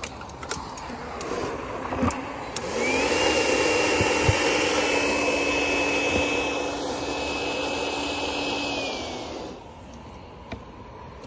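Motorised fogger starting up about three seconds in and running steadily for about six seconds, blowing varroa mite treatment fog into beehives. Its steady whine rises in pitch as it starts and falls as it winds down; a few clicks come before it starts.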